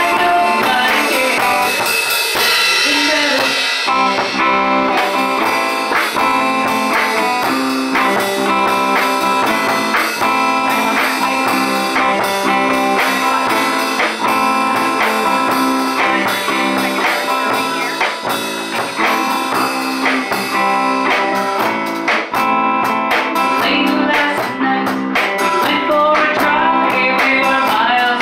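Live band playing a song: a hollow-body electric guitar, a bass guitar and a drum kit, with a woman singing.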